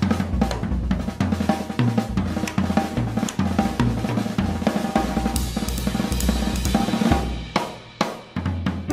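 Up-tempo drum solo on a jazz drum kit: fast snare, tom and bass drum strokes mixed with cymbals and hi-hat. Sustained cymbal wash in the middle, then the playing thins and drops in level near the end.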